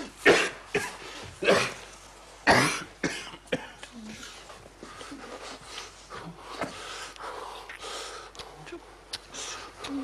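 A man coughing hard, about six harsh coughs in the first four seconds. It is the chesty coughing of a man sick with a heavy cold. The coughing then dies down to quieter breathing.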